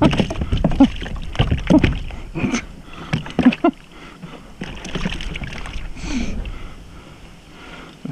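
A hooked fish splashing at the surface beside a kayak as it is brought in and landed, with sharp knocks and handling noise against the hull; the splashing thins out about halfway through.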